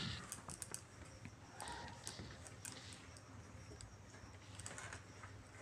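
Faint rustling of cloth being smoothed and folded by hand on a cutting table, with scattered light taps and clicks.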